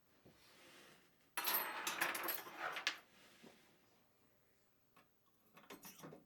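Light metallic clattering and jangling of small hardware being handled, in one dense stretch about a second and a half long starting about a second and a half in, followed by a few scattered clicks and a short cluster of clicks near the end.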